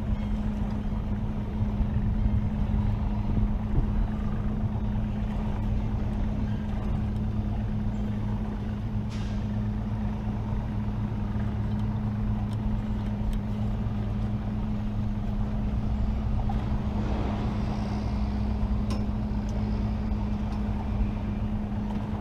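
Evinrude E-TEC outboard motor running steadily at low speed, a constant low hum, with water and wind noise.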